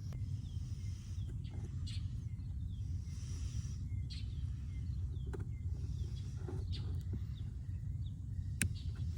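A few scattered sharp clicks and knocks of parts being handled and fitted, over a steady low rumble, with faint bird chirps in the background.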